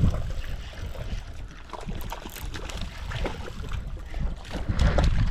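Wind buffeting the microphone in an uneven low rumble, with scattered small knocks and rustles. It is louder near the start and again near the end.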